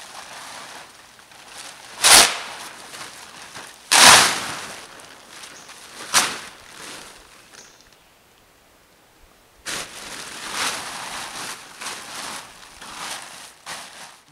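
Blue polyethylene tarp being yanked off a shelter roof, crackling and rustling, with three loud rips about two seconds apart. After a short lull, softer crinkling as the tarp is gathered up and bundled.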